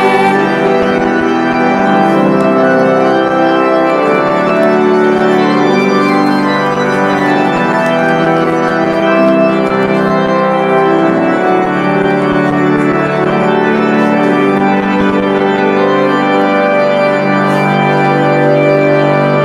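Church organ playing sustained hymn chords, the accompaniment to the entrance hymn.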